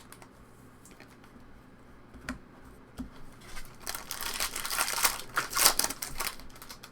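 Plastic trading-card pack wrapper crinkling and tearing as it is handled and opened, loudest in the second half, after a few light clicks and taps.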